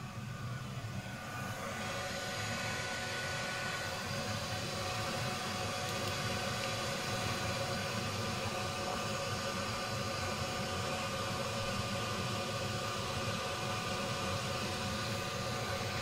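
Alpha Intec 2 gas boiler's combustion fan running steadily, a whirring hum with a few steady whining tones, building up about two seconds in.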